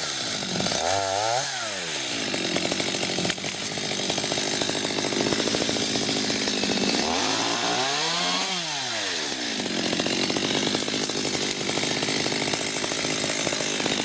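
Two-stroke chainsaw running at high speed as it cuts into a tree being felled. It revs up and drops back about a second in, and again about halfway through.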